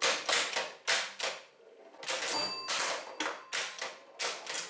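Bally 4 Queens electromechanical pinball machine in play: a quick, irregular run of sharp mechanical clacks and rattles from flippers, bumpers, relays and score reels. A brief ringing tone sounds about two and a half seconds in.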